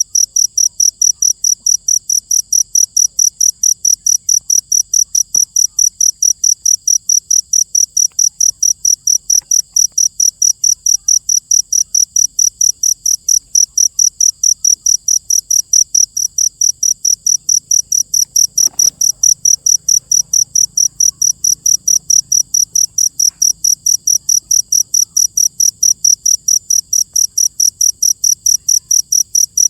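Cricket chirping, a high-pitched chirp repeated evenly about three to four times a second without a break.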